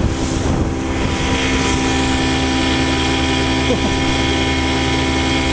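1974 Johnson 6 hp two-cylinder two-stroke outboard running steadily at cruising speed, holding an even pitch with no revving. It is running on oversized spark plugs screwed straight into the stripped plug holes of its aluminium head, a jury-rig repair.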